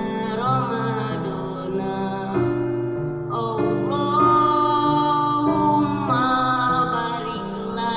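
Music: an Arabic devotional mawlid song, with long drawn-out sung notes over a plucked-string accompaniment.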